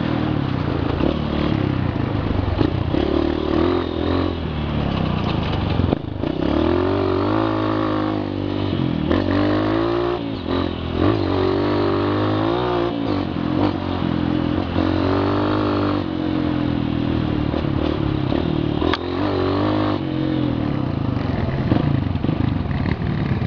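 Trail motorcycle engine heard from on board while riding, its pitch rising and falling several times in the middle as the throttle opens and closes, over a steady rattle from the rough dirt track.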